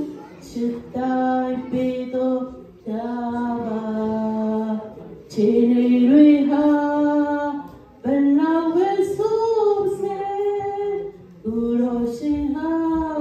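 A woman singing solo into a handheld microphone, in long held phrases with short breaks between them.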